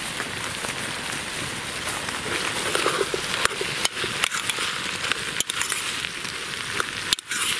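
Hot fat sizzling in a pot over a campfire as diced potatoes are tipped in on top of frying sausages and paprika and stirred with a spoon, with the wood fire crackling and sharp clicks here and there.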